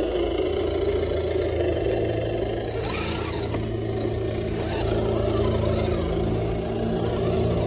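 Electric motors and geared drivetrains of scale RC rock crawlers whirring steadily as the trucks crawl slowly over tree roots.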